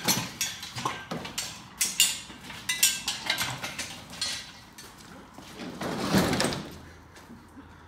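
Steel clanks and knocks from the square-tube arms of an engine crane being handled and fitted, and from an engine being shifted on a ute's steel tray, with a longer scraping sound about six seconds in.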